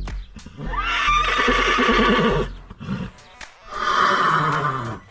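A horse whinnying twice: a long neigh, then a second, shorter one near the end.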